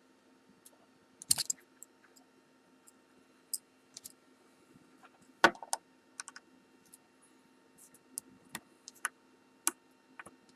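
Irregular small metal clicks and taps of a tool working at the C-clip on a Kwikset-clone lock cylinder, with a quick cluster about a second in and the sharpest click about halfway through.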